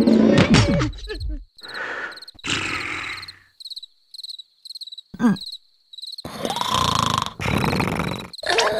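Cartoon soundtrack of character grunts and vocal noises mixed with sound effects. A quick run of high chirps comes in the middle, with a short falling squeak.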